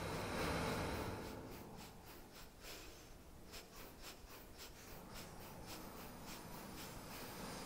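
Breathy, pitchless noise from a contemporary piece for bass recorder, vibraphone, keyboard and electronics, with no clear notes. A swell of airy noise in the first second or so falls back to a softer hiss scattered with short clicks.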